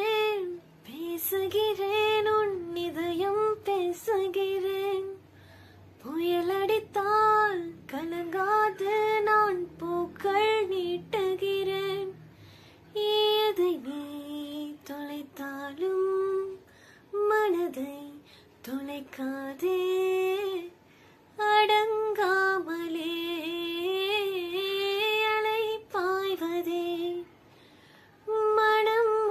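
A woman singing solo and unaccompanied, in phrases of a few seconds with short breaths between them. Her voice bends and wavers through ornamented turns on each held note.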